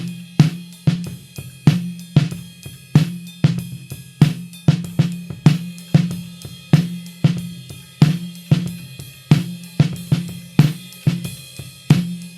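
Snare drum with an Evans UNO G2 head, close-miked and recorded dry with no EQ or processing. It is struck in a steady rhythm of a little over two hits a second, some hits louder than others, and each hit rings on with a low tone.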